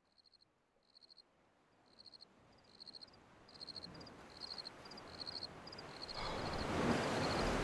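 Insects chirping in short, high-pitched pulsed trains that come more often and grow louder. About six seconds in, a steady rushing noise swells up under them.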